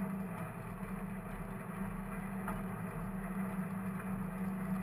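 Snaefell Mountain Railway's Victorian electric tram running uphill on its four electric traction motors: a steady hum with wheel-on-rail noise, heard from inside the wooden cab.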